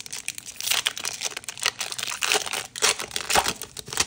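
Foil booster-pack wrapper crinkling and crackling in the hands as it is torn open and the cards are pulled out, a rapid run of irregular crackles.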